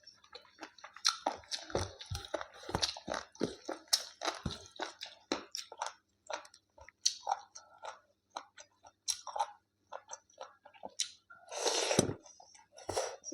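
Close-miked eating: a person chewing and biting food, with crunchy, wet mouth clicks coming thick and fast for the first few seconds, then more sparsely. A longer noisy sound comes near the end.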